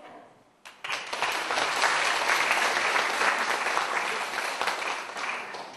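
Audience applauding, starting sharply under a second in and dying away near the end.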